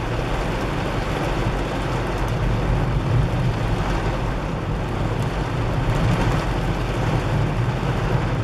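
Heavy rain pelting a car's windscreen and roof, heard inside the cabin, over a steady low rumble from the car on the move.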